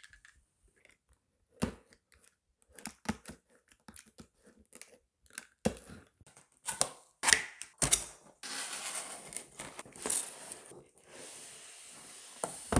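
Cardboard laptop packaging being handled and torn open: scattered clicks and knocks of handling, then a longer tearing stretch about eight seconds in.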